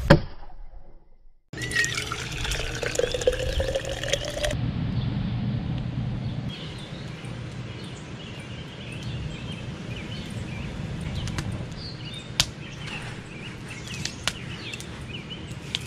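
A sharp snap at the very start. After that, a wood fire burns in a steel fire ring with a steady hiss and occasional sharp pops and crackles, a few standing out near the end.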